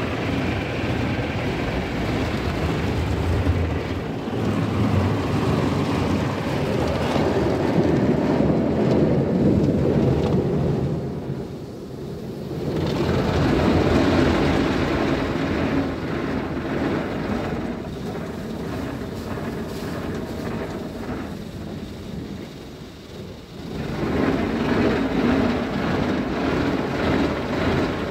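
Red brushes of a PDQ Tandem Surfline automatic car wash scrubbing and slapping against the car body amid water spray, heard from inside the car. The din swells and fades as the brushes pass, dropping briefly about twelve seconds in and again about twenty-two seconds in before coming back loud.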